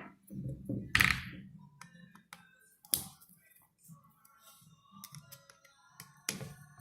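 Irregular metallic clicks and clinks from parts of an M2000 stitcher head and tools being handled, some leaving a short ring, over a low steady hum. The loudest click comes about a second in.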